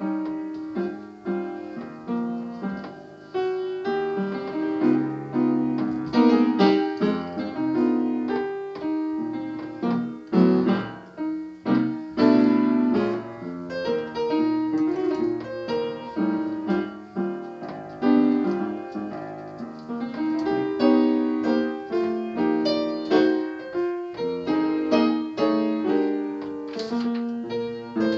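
Upright piano played solo with both hands, a jazz standard with a continuous flow of struck notes and chords.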